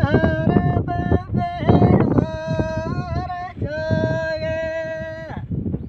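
A man singing a Gojri folk bait with no instruments, holding long high notes with wavering ornaments between short breaks. The singing stops shortly before the end, leaving wind noise on the microphone.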